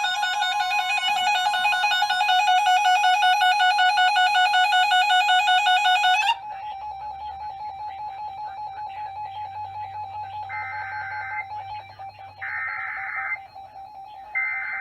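Weather-radio alert alarm: a loud pulsing electronic beep with many overtones, which drops to a quieter pulsing tone about six seconds in. Three short, screeching digital data bursts about two seconds apart follow: the EAS SAME header that opens the next alert.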